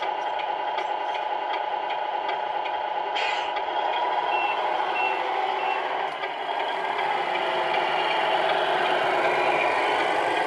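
Simulated truck diesel engine sound from the speaker of a Tamiya Scania R470 radio-control truck, running steadily. About halfway through, three short reversing beeps sound as the truck backs up. The engine sound grows louder near the end as the truck drives forward.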